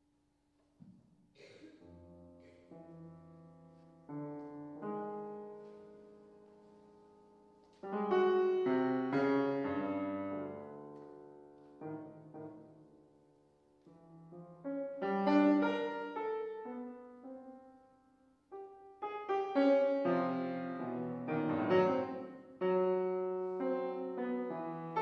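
Grand piano playing sparse, separated chords that are left to ring and fade. It is soft at first, with sudden loud chords about eight and fifteen seconds in and a denser, loud run of chords near the end.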